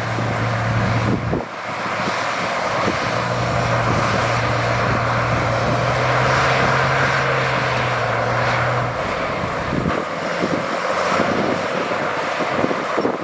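Diesel engine of heavy earthmoving machinery running steadily, with a broad noisy rush over it. The low engine hum breaks off briefly about a second and a half in and stops about nine seconds in.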